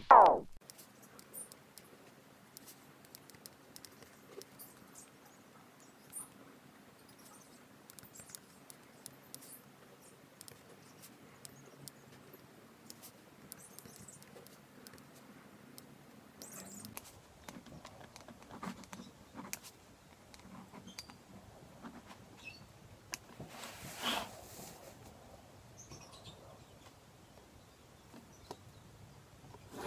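Pen writing on spiral-notebook paper: faint, scattered scratching and small ticks, with one short louder rustle about 24 seconds in.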